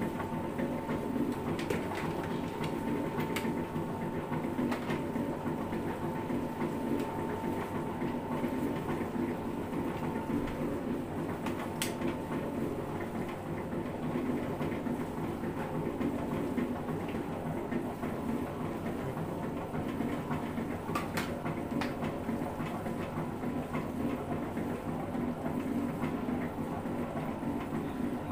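Electric dough mixer running steadily, its paddle churning minced chicken and seasonings into dimsum filling, with a rattling mechanical drone. A few sharp clicks stand out over it.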